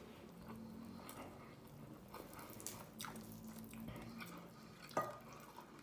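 Faint close-up chewing and mouth sounds of a person eating rice and chicken, with soft squelches of fingers working the rice, and one sharper click about five seconds in.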